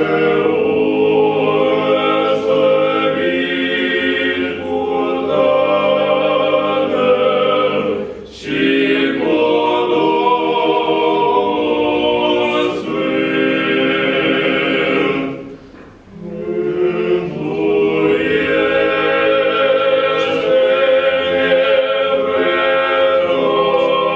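Small male choir singing Orthodox liturgical chant a cappella in several-part harmony. The long sustained phrases break off briefly about a third and two-thirds of the way through.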